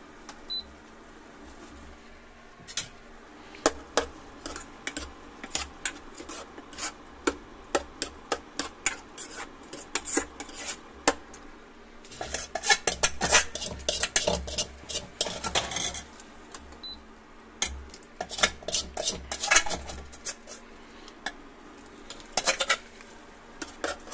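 Metal spoon scraping and clinking against a steel bowl and pan, with many sharp knocks and denser bursts of scraping in the middle stretch. Two short high beeps from an induction cooktop's touch panel, one near the start and one past the middle.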